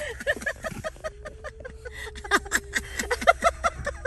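Arctic wolves howling: one long steady howl over a chorus of short yips.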